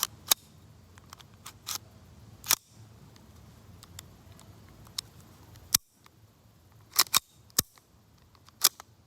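Slide of an Echo1 TAP airsoft pistol being racked back and forward several times, making a series of sharp plastic-and-metal clacks at uneven intervals.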